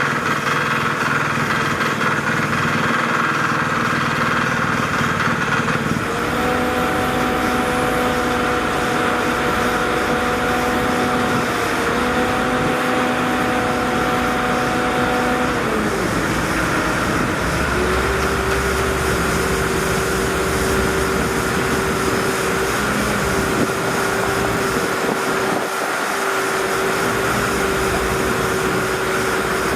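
An engine running steadily under a constant rumble, with a whine that holds one pitch, drops about halfway through, then settles at a lower steady pitch.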